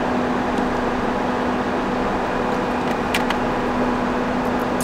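Steady hum and hiss inside a car cabin, with a few faint light clicks about three seconds in, likely from the plastic water bottle being handled.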